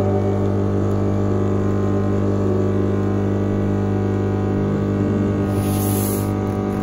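A steady low hum made of several held tones, with a brief high hiss near the end.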